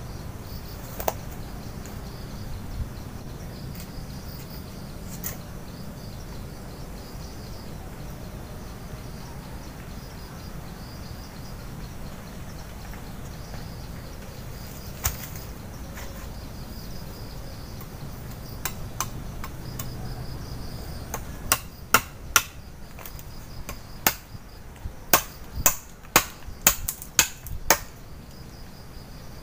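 Blade chopping into a wooden pole: about a dozen sharp, quick strikes in the last several seconds, with a few single wooden knocks earlier. Insects chirp steadily in the background.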